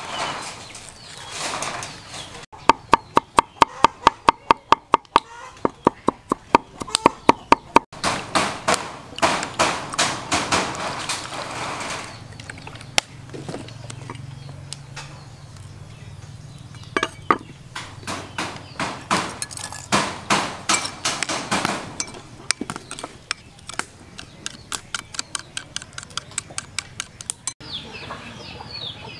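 Cleaver chopping on a wooden chopping board in runs of sharp, even strokes, about four a second at first and faster later.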